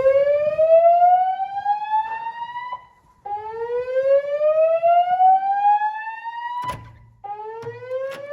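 Fire alarm evacuation tone from the building's voice evacuation speakers: a slow whoop sweeping upward in pitch over about three and a half seconds, then repeating after a brief break, for two and a half sweeps. Two sharp clicks come near the end.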